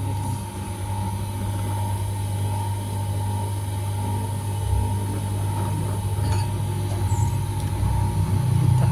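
Small electric motor of a lens grooving machine for eyeglass lenses, running with a steady hum and a constant thin whine over it.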